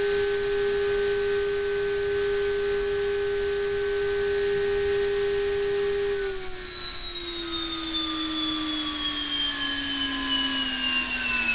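Dynamax ducted fan driven by a Neu 1527 electric motor, running at full power (about 4.7 kW) with a steady high whine that reads about 107 dB on a sound meter. About six seconds in it is throttled back, and the whine falls steadily in pitch as the fan slows.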